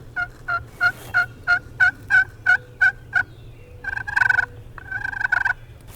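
A run of about ten evenly spaced turkey yelps, roughly three a second, followed by two rattling gobbles from wild turkey toms.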